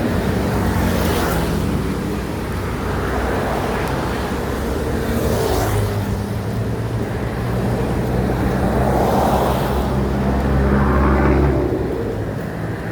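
Street traffic: a steady engine hum with several vehicles passing by, the louder passes about a second in, halfway through and near the end.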